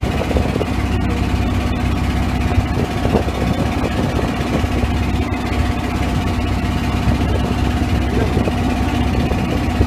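A wooden boat's inboard engine running steadily, a constant low rumble with a steady hum over it.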